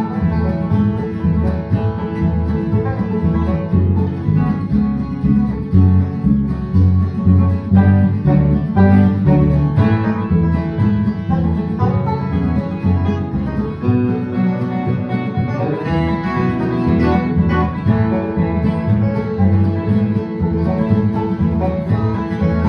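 Background music: a bluegrass-style tune on plucked strings, guitar and banjo, with a steady rhythm.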